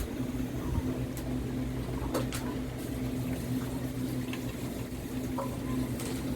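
Steady low machine hum, like a running motor, with a few faint clicks and knocks over it.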